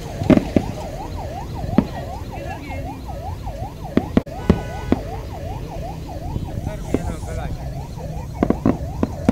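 Siren in a fast yelp, its pitch sweeping up and down about twice a second without a break. Sharp fireworks bangs go off now and then, the loudest just after the start, over a steady low rumble.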